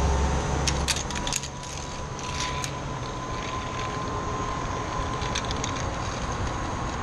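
Metal clinks and rattles of zip line harness hardware, carabiners and trolley, being handled and clipped on. Most of the sharp clicks fall in the first three seconds, with a few more later. A low rumble drops away after about a second and a half, and a faint steady high tone runs underneath.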